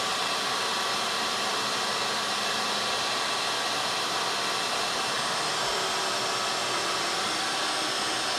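Vacuum table's suction motor running steadily, a constant airy whine holding the shirt flat while the CNC pen draws.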